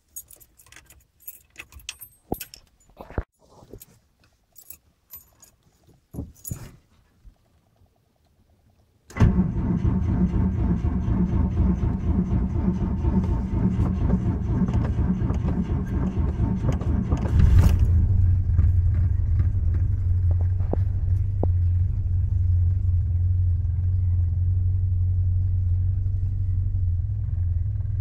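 Keys jangling and ignition clicks, then the GAZ-24 Volga's engine starts from cold about nine seconds in and runs fast. A little past halfway it settles to a lower, deeper, steady idle.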